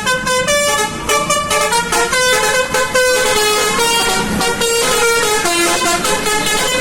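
Bus 'telolet' multi-tone air horn playing a quick tune of short notes, the pitch stepping from one note to the next with no pause.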